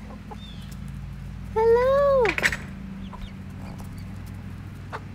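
Hens clucking softly and intermittently under a steady low hum.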